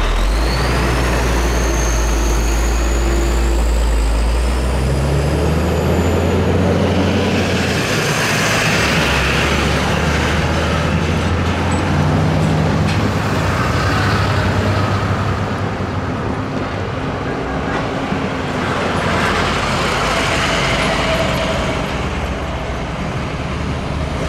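Road traffic pulling across a railroad crossing: pickup trucks towing trailers and a box truck driving through, their engines rising and falling in pitch as they accelerate and shift. A thin high squeal glides up and down during the first few seconds.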